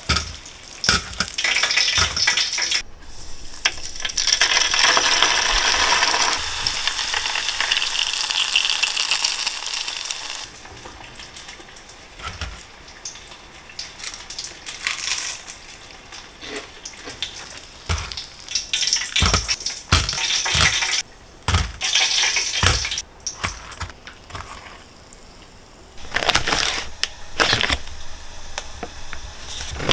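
Dumplings deep-frying in a pot of hot oil: a steady sizzle that stops about ten seconds in. After that come scattered light taps and clicks of chopsticks on a wire cooling rack over a metal tray.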